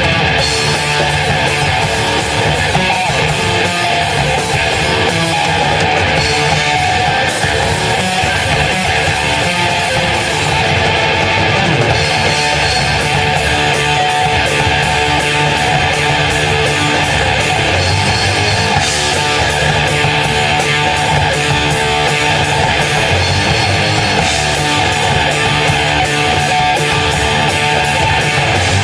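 A band playing a loud heavy rock song live, with guitar over a steady drum beat.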